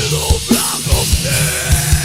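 Doom/death metal song: dense, distorted heavy-metal band sound with a drum kit striking hard low beats several times a second.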